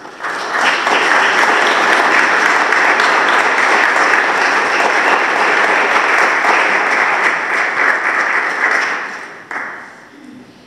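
Congregation applauding after the eulogy: steady clapping that starts just after the beginning and dies away about nine and a half seconds in.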